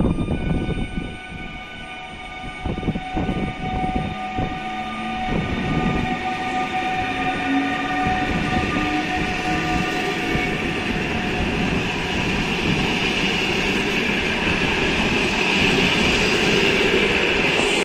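A Newag Griffin (EU160) electric locomotive and its train of sleeping cars passing close by. As the locomotive goes by there are wheel clicks and knocks and several steady whining tones, with one lower tone rising slowly. After that, the rolling hiss of the coaches' wheels on the rails grows louder toward the end.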